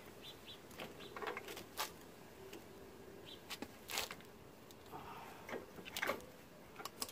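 Screwdriver prying at old brake pads in a Mazda 3's caliper bracket: scattered light metal clicks and scrapes, the loudest about four seconds in.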